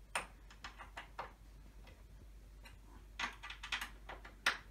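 Sharp clicks and light metallic knocks in two irregular clusters, as hardware is worked by hand on the wooden frame of a flat-pack IKEA sofa. The strongest click comes near the end.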